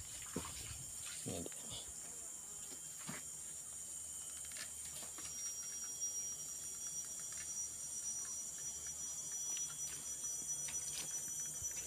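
Faint, steady high-pitched drone of insects, with a second thin steady tone joining about five seconds in. A few faint clicks and a low steady hum sit underneath.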